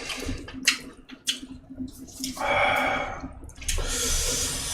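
Wet eating noises at close range: a few sharp clicks, a longer wet smacking patch, then a high hiss near the end.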